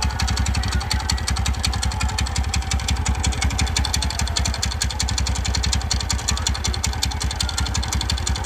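TVS Ntorq 125 scooter's single-cylinder four-stroke engine idling steadily with a rapid, regular tik-tik / khat-khat clatter. The mechanic traces the noise to a loose bolt on the one-way (starter) clutch, which lets free play into the clutch.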